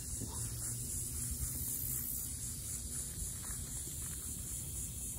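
Steady, high-pitched drone of insects, pulsing evenly, over a low rumble.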